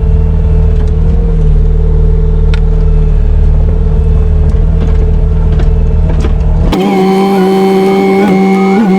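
Skid steer engine running steadily with a low hum. About seven seconds in it cuts off abruptly and music takes over.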